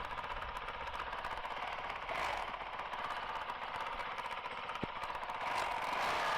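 Honda CRF450RL's single-cylinder four-stroke engine running as the bike rides along, a rapid, even pulse that gets a little louder near the end.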